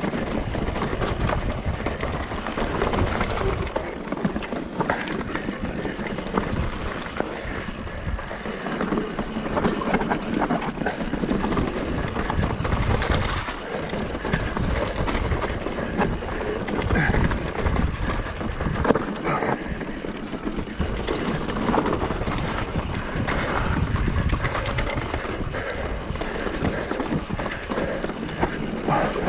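Mountain bike descending rocky singletrack at speed: tyres rolling and clattering over stone slabs and roots, the bike rattling with each impact, and wind rushing over the rider-mounted microphone.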